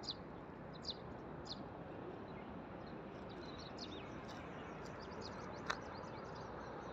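Small birds chirping here and there: short, high chirps every second or so, with a patch of fainter chirps about two-thirds of the way through. Behind them is a faint, steady outdoor hiss.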